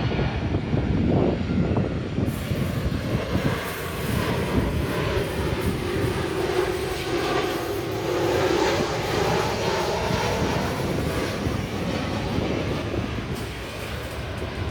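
Boeing 737-800 on final approach, its CFM56-7B turbofan engines running as a loud, steady jet rush. A humming tone swells in the middle of it and fades again.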